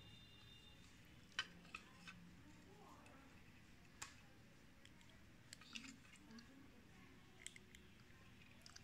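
Near silence with scattered faint clicks and light taps from handling small parts of a hand grinder's motor during oiling.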